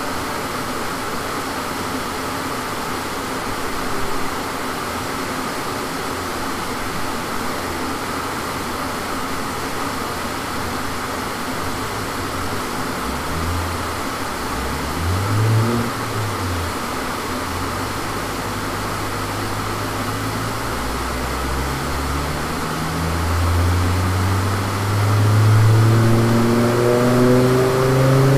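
Volvo inline five-cylinder engine on a chassis dyno. First a steady fan-like rush, then the engine is revved up and down a couple of times about halfway in and taken up through the gears. In the last third it pulls under load on the rollers for a power sweep, its pitch climbing and the sound growing louder.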